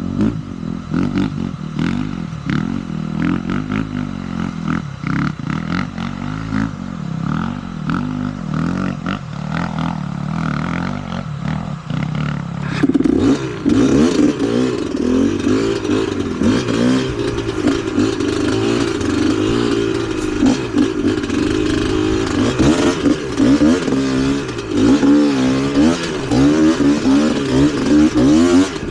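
Trail motorcycle engine under way on a dirt track, its revs rising and falling with the throttle; it gets louder and higher-pitched about halfway through.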